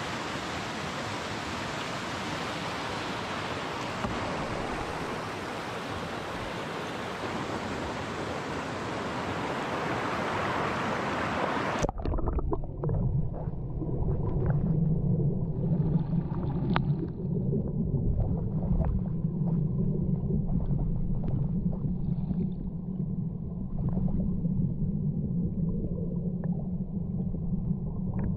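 Mountain river rushing, an even hiss. About twelve seconds in it cuts suddenly to the muffled sound of the current heard underwater: a low rumble with faint clicks and gurgles.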